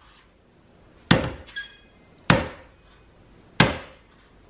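A large kitchen knife chopping three times into the shell of a dehusked young Thai coconut on a wooden cutting board, each blow a sharp thwack about a second apart. The shell has not yet cracked open.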